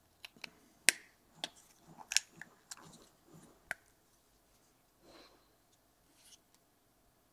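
Sharp clicks and taps of a black acrylic door being fitted onto an anodised aluminium squonk box mod, a quick run over the first four seconds with the loudest near one and two seconds in. A soft rustle of handling and a few faint ticks follow.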